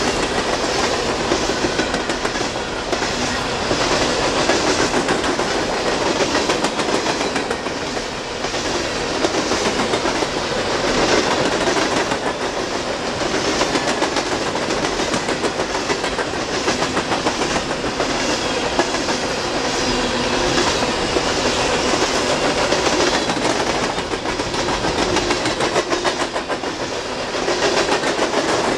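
Norfolk Southern hopper cars rolling past close by: a steady noise of steel wheels on the rails, with a faint repeating clatter as wheel sets pass over the track.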